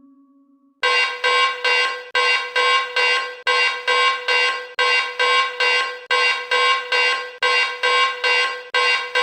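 Emergency alert alarm: a loud, harsh buzzing tone pulsing about three times a second, starting about a second in.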